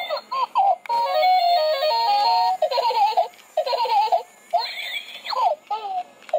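Battery-powered crawling baby doll toy playing its recorded sounds: baby giggles, then a short electronic tune about a second in, then more baby laughter.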